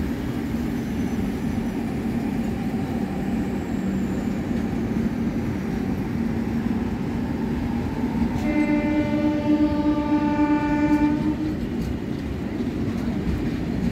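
Express train of LHB passenger coaches running past on the rails, a steady rumble of wheels on track. About eight and a half seconds in, a train horn blows for about three seconds.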